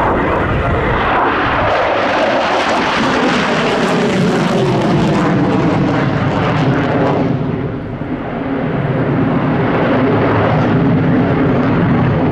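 Polish Air Force MiG-29's twin Klimov RD-33 turbofan jet engines, loud and steady as the fighter flies its display with afterburners lit. The sound dulls briefly a little under eight seconds in, then swells again.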